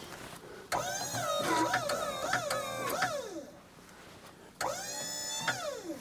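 Wood-Mizer LT40 sawmill's hydraulic pump motor whining in two runs as the mill's hydraulics are worked. The pitch dips and jumps as the load changes, and each run winds down as it stops, the second sliding down steeply.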